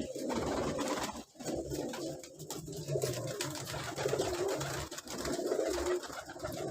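Domestic pigeons cooing continuously, low wavering coos overlapping one another.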